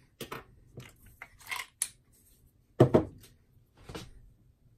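AA rechargeable batteries clicking and rattling as they are handled and pulled from a Sea & Sea YS-D2 underwater strobe's battery compartment: a few separate small clicks, the loudest about three seconds in.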